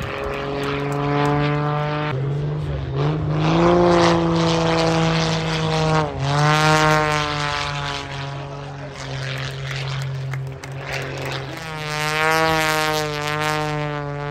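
Aerobatic biplane's propeller engine droning through manoeuvres, its pitch sliding down and back up about two seconds in and again about six seconds in, and wavering near the end.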